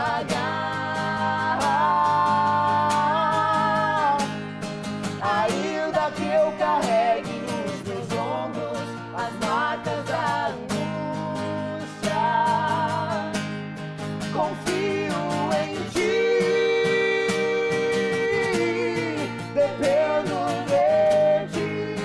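Live gospel song: a man and a woman singing over a strummed acoustic guitar, with long held notes sung with vibrato.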